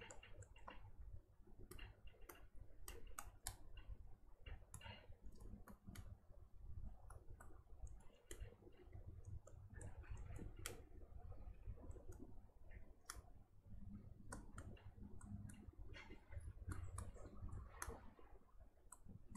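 Near silence in a small room: faint, irregular clicks and taps scattered throughout, over a low steady hum.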